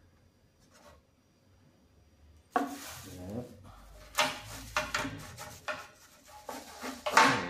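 Hard plastic toy parts knocking and clattering, with plastic wrapping rustling, as a wrapped piece of a Playmobil pirate ship is pushed into the plastic hull. It starts suddenly about two and a half seconds in after a quiet start, with several sharp knocks, the loudest near the end.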